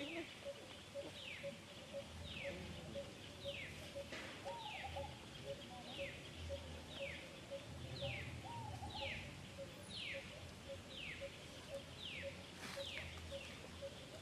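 A bird calling over and over, each note a short whistle sliding down in pitch, about once a second, over a faint rapid pulsing tone and a low rumble.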